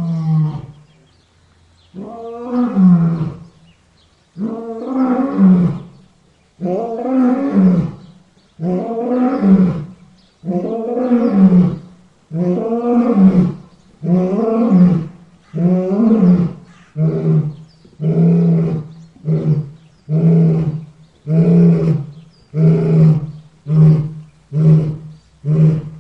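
A lion's roaring bout: a run of deep, drawn-out roars about every two seconds, shortening into quicker grunts, about one a second, in the second half.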